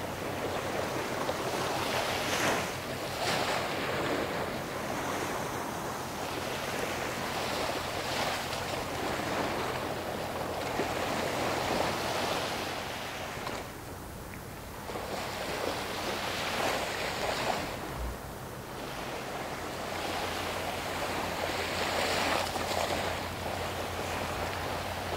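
Wind on the microphone and water washing at the river shore, swelling and easing every few seconds, over a low steady hum.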